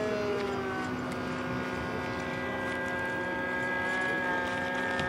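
Radio-controlled model floatplane's engine buzzing on a low pass, its pitch dropping as it goes by in the first second, then holding a steady drone that rises slightly near the end.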